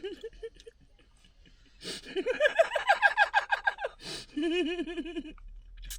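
Laughter: a loud run of quick 'ha-ha' pulses, about eight a second, starting about two seconds in, then a shorter, lower-pitched burst of laughter just after it.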